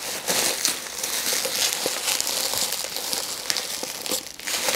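Packing wrap being pulled and torn off a newly delivered piece of gym equipment: a dense crinkling rustle full of small crackles, with a brief pause near the end.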